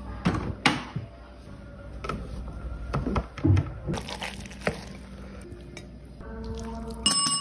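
Food being handled with a utensil: scattered clicks and knocks with wet, squishing sounds, over faint background music. A chime-like ringing tone starts near the end.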